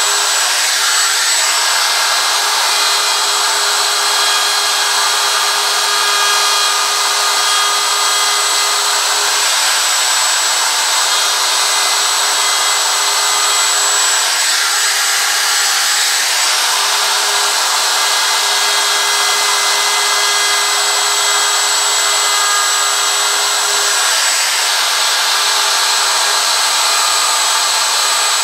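DeWalt handheld router with a 90-degree bit running steadily at full speed while it cuts into a wooden sign board. A constant high motor whine mixes with the cutting noise, which shifts a little as the router is pushed along.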